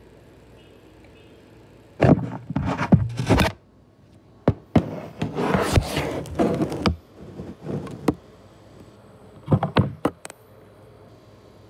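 Bursts of knocking, thumping and scraping in a small room, in four clusters with short pauses between them, the loudest in the first two seconds of the noise and a longer scraping run in the middle.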